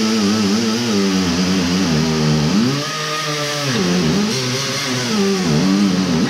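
Angle cutter (angle grinder) running and cutting, its motor pitch repeatedly dipping and recovering as it is pressed into the work, with a steady hiss of cutting above it.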